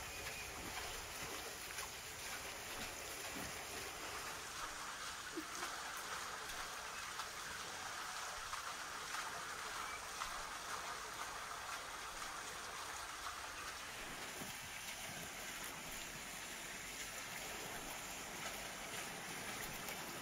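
Steady rushing of flowing water, like a stream, holding an even level throughout.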